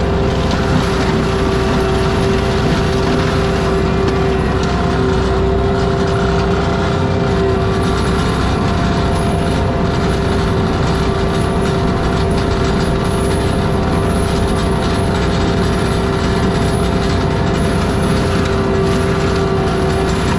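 Forestry mulcher on an ASV RT-120F compact track loader running steadily at working speed. The diesel engine and spinning mulcher drum make a loud, even hum with a steady whining tone on top.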